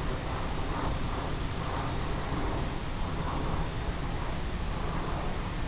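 Small electric quadcopter's motors and propellers running as it lifts off the ground, heard as a steady noisy rush with a low rumble and a thin steady high tone.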